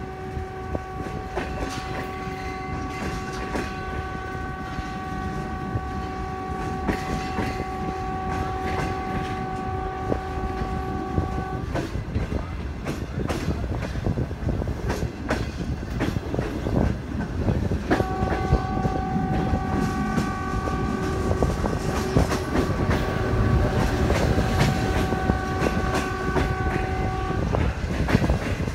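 Passenger coach wheels rolling and clattering over the rail joints while a train horn sounds two long steady blasts. The first is already going at the start and stops about twelve seconds in; the second starts about six seconds later and lasts about ten seconds.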